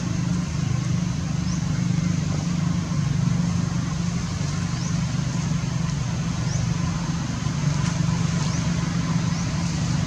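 A steady low drone, even throughout, with short high rising chirps repeating every second or two over it.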